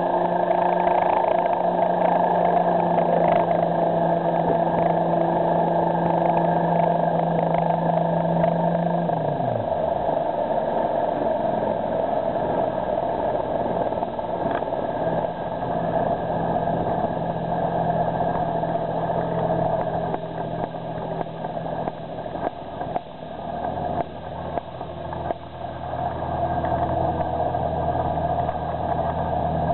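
Aerocopter AK1-3 light helicopter's piston engine and rotor running steadily. About nine seconds in, the note drops in pitch, and the helicopter runs on at the lower pitch with a more uneven level.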